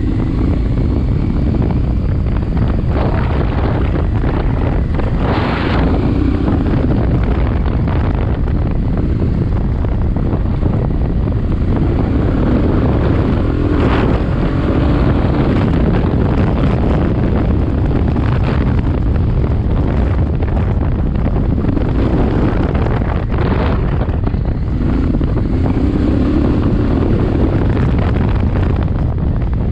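Honda Transalp 650's V-twin engine running under way on a dirt track, its note rising and falling with the throttle, under heavy wind noise on the camera microphone.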